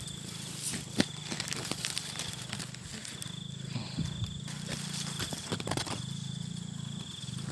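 Close-up rustling of leaves and bean vines being handled and picked, with a plastic sack crinkling and sharp snaps of stems, the loudest about a second in. A thin high trill comes and goes underneath.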